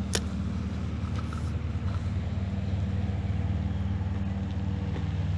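Lawnmower engine running steadily in the background, a low even hum, with a single sharp click near the start.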